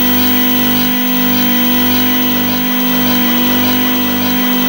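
Experimental electronic noise: a loud, steady drone of several held tones over hiss, with a low throb pulsing about two to three times a second.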